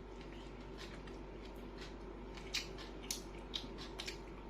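Soft scattered clicks and ticks of a person eating fried noodles: chewing and light utensil taps, over a faint steady hum.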